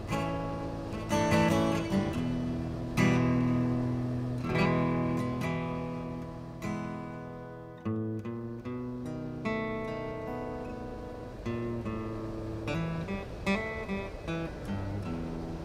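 Solo guitar improvisation: chords struck and left to ring out, then quicker single notes over the last few seconds.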